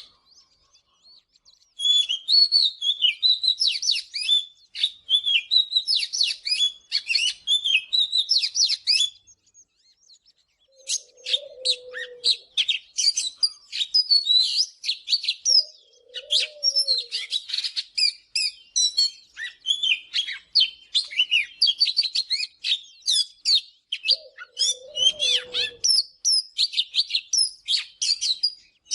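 Oriental magpie-robin singing a rapid, varied run of whistled and chattering phrases, with a pause of about two seconds a third of the way in. Three brief low notes sound beneath the song in the second half.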